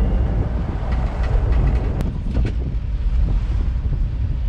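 Inside a moving car's cabin with the windows open: steady low engine and road rumble with wind noise, and a single sharp click about two seconds in.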